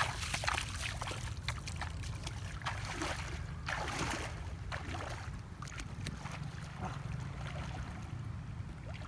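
Legs splashing through shallow river water as a person wades in quickly. The splashing thins out after about five seconds as he sinks in to swim. A steady low rumble runs underneath.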